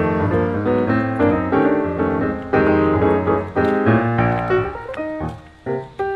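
Piano music: a quick, continuous stream of notes over held low bass notes, briefly dropping away near the end.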